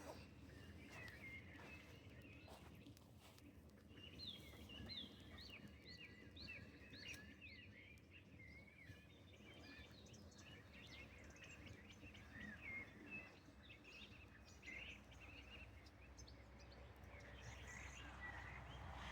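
Faint birdsong: bursts of quick, high chirps, thickest about four seconds in, over a low steady background hiss.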